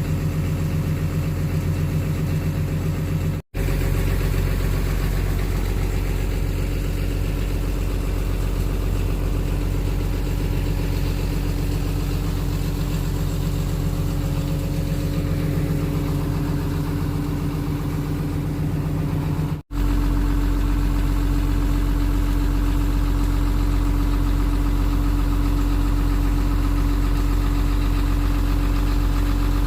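Sunward excavator's diesel engine idling steadily, a constant low hum. It cuts out briefly twice where the recording is spliced, and after the second cut the hum carries a slightly stronger, higher tone.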